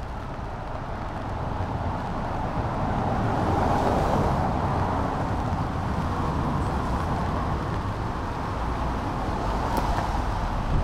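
Traffic on a rain-wet street: cars passing with a tyre hiss that swells to a peak about four seconds in and again near the end, over a low, gusting rumble of wind on the microphone.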